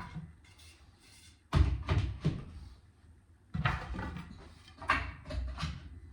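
Wooden knocks and clatter as pine spindles and spacers are set loosely into the baserail groove. There are several separate knocks, bunched in the middle and near the end.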